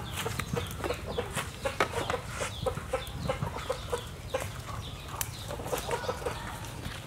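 Chickens clucking, a quick run of short repeated notes, with scattered light clicks alongside.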